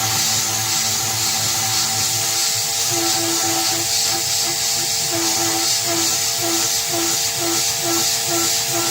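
PM-25 benchtop milling machine under CNC control, milling with a 1/4-inch three-flute carbide end mill, its spindle and stepper motors whining steadily over the hiss of mist coolant. From about three seconds in, one tone pulses on and off about twice a second as the machine steps through the toolpath.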